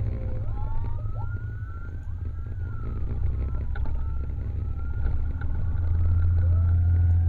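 Several emergency sirens from an ambulance and its motorcycle escort wailing together, their pitches sweeping up and down and overlapping. Beneath them is a steady low vehicle rumble that grows louder near the end.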